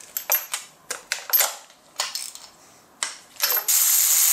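Sharp, uneven metal clicks of a hand ratchet and tools working the valve cover nuts, then about three and a half seconds in a cordless electric ratchet starts running with a steady high whir, spinning a nut down.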